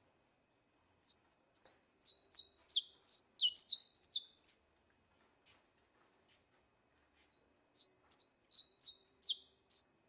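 A songbird singing two runs of quick, high notes that each slide downward: the first about a second in, the second near the end.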